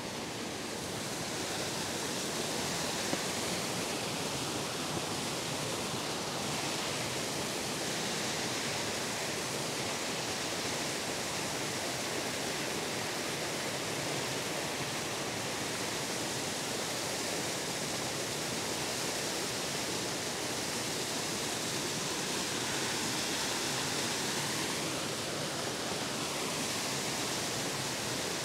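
Small mountain waterfall cascading over rocks: a steady rush of water.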